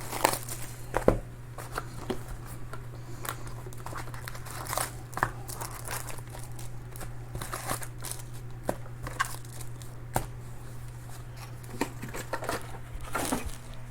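Plastic wrapping crinkling and tearing in short, irregular rustles as a sealed box of Panini Donruss Optic baseball card packs is opened.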